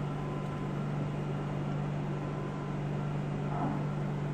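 Steady low hum of room machinery, with no distinct handling clicks standing out.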